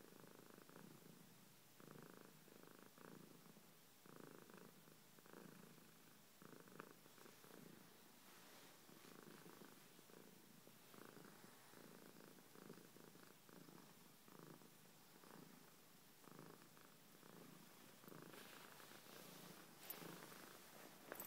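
Tabby-and-white domestic cat purring softly and steadily, the purr swelling and fading in regular rounds about once a second with its breathing.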